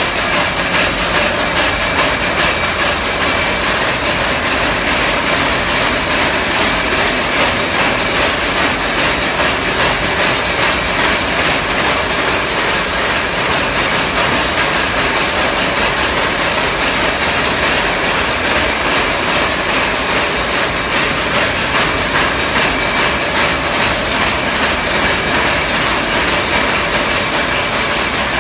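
Single-wire chain link fence machine running, a steady loud mechanical clatter of rapid clicks with a faint whine. A brief, hissier swell comes back about every eight seconds as it weaves the wire mesh.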